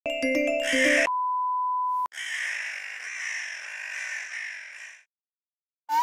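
Cartoon sound effects: a brief musical jingle of a few notes, then a steady beep held for about a second that ends with a click, then a harsh hissing, fizzing sound for about three seconds that fades out. A rising boing begins right at the end.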